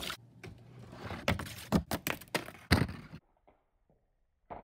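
A marble rolling down and dropping between paper chutes taped to a wall, with a series of sharp taps and knocks as it lands and bounces along the track. After a short quiet pause, a few more knocks come right at the end.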